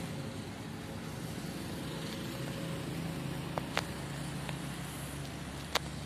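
Road traffic: the steady rumble of cars and a motorcycle driving past, with a few sharp clicks in the second half.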